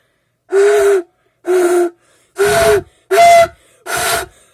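Five short, breathy blasts blown into an empty soda can, each a hoarse tone over rushing air. It is a failed attempt at the can trick for imitating a Lamborghini engine, and it sounds like a slaughtered zebu.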